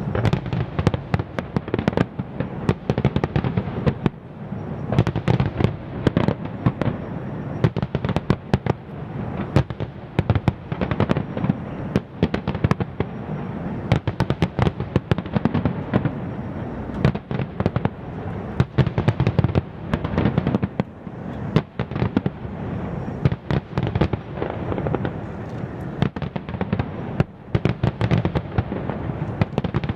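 Aerial fireworks display: many shells bursting in a dense, unbroken stream of bangs and crackles over a steady low rumble.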